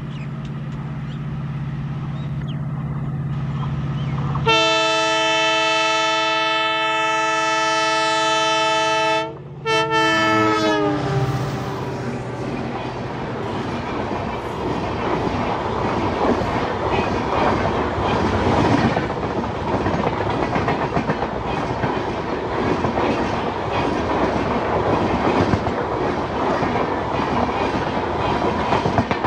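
WDP-4D diesel locomotive approaching with its engine running, then sounding its multi-note horn in one long blast of about five seconds. A brief second blast follows, dropping in pitch as the locomotive passes. The passenger coaches then roll by close, wheels clattering steadily on the rails.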